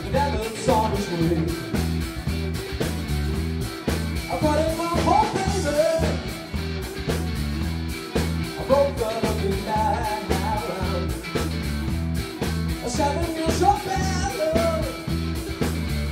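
Live band playing: electric bass, electric guitar and drum kit on a steady beat, with three sung phrases over it.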